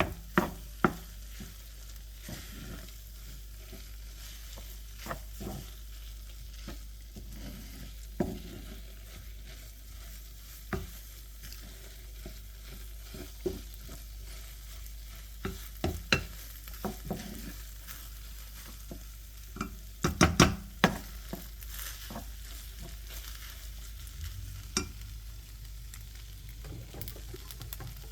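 Fried rice with leftover tteokbokki sauce sizzling in a frying pan as it is stir-fried, with the spatula scraping and knocking against the pan every couple of seconds and a quick flurry of knocks about two-thirds of the way through.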